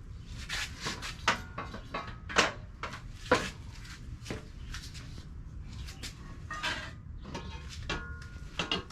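Irregular knocks and clinks of a metal patio table's parts being handled and fitted together during assembly, some with a brief metallic ring. The two sharpest knocks come a little over two and three seconds in.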